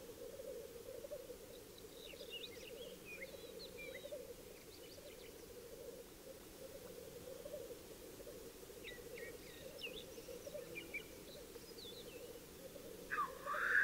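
Distant chorus of displaying black grouse, a steady low bubbling. Small birds chirp briefly over it a few times, and a short louder call comes near the end.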